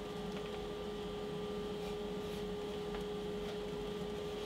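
Steady workshop background hum with one constant faint tone, and a few faint light ticks.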